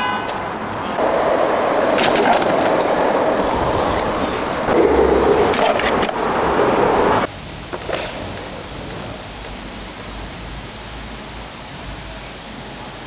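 Skateboard wheels rolling loudly over asphalt, with a few sharp clacks of the board, cutting off suddenly about seven seconds in and leaving a quieter steady street background.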